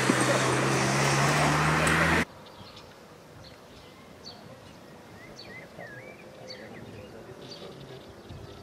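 Wind buffeting the microphone over a steady low hum, which cuts off abruptly about two seconds in; then quiet open-air ambience with scattered bird chirps.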